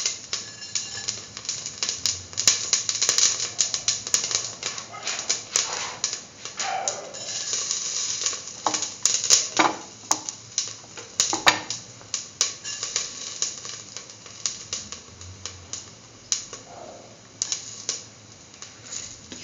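Cumin seeds crackling in hot oil in a stainless steel pan: a quick, uneven run of sharp clicks and pops over a light sizzle.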